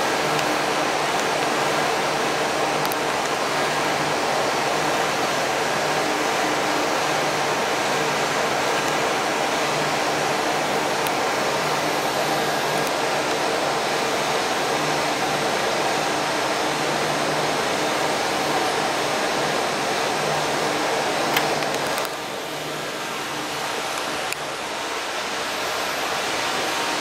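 Steady hiss and hum of a building's ventilation or air-conditioning system, with a faint low droning hum under it; it gets somewhat quieter near the end.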